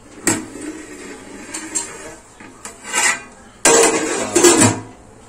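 Metal clatter and scraping as a large aluminium lid is lifted off a pot of steamed biryani rice and set down. There is a sharp knock just after the start, and the loudest clattering comes about four seconds in.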